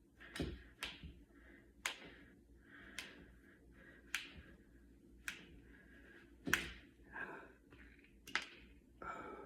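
Finger knuckles being cracked: about eight sharp pops, roughly one a second, the loudest about six and a half seconds in.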